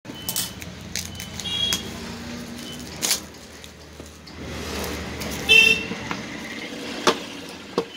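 Plastic shrink-wrap crinkling and crackling as it is peeled and handled off a cardboard phone box, with scattered light clicks and taps. About five and a half seconds in, a short, loud, high-pitched tone cuts through, and a fainter one sounds near the start.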